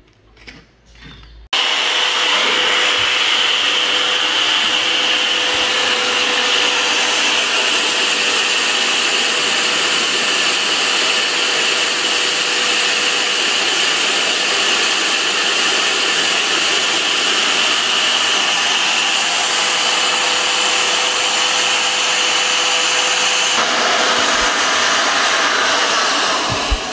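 Corded electric drill spinning a 180-grit sandpaper disc against an engine valve to polish off carbon. It starts abruptly about a second and a half in and runs at a steady whine, its note changes a few seconds before the end, and then it winds down.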